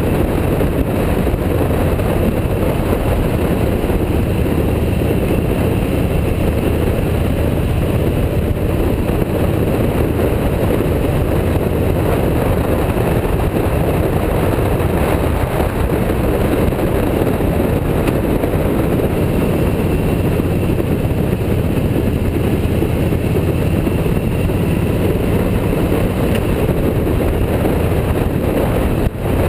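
Steady wind rush and engine noise of a motorcycle at riding speed, picked up by a camera mounted on the bike.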